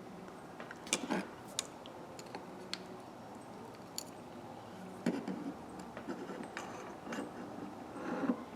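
Light, irregular metallic clicks and taps from the small parts of a Husky 1/2-inch drive ratchet being handled while its spring retaining clip is worked into place by hand, with a cluster of rattling near the end.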